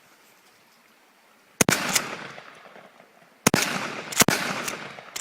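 Gunshots fired in quick succession as rapid fire: three loud reports, each with an echoing tail, the first about a second and a half in and the next two about two seconds later and then under a second apart.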